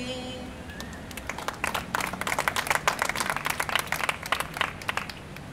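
A small audience applauding with hand claps, starting about a second in as the last sung note of a verse dies away, and thinning out near the end.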